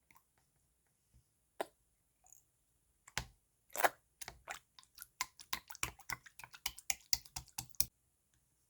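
Slime being squished and mixed by hand: a few scattered sticky clicks, then from about three seconds in a quick run of wet popping clicks, about four or five a second, that stops shortly before the end.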